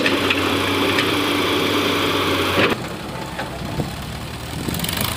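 Excavator's diesel engine running steadily while it loads sand. About two and a half seconds in, the sound changes suddenly to a quieter Sonalika farm tractor's diesel engine running at low revs.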